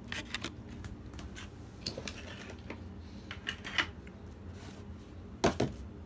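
Clear plastic clamshell packaging of a CPU being handled: scattered small clicks and crackles, with a louder double knock about five and a half seconds in.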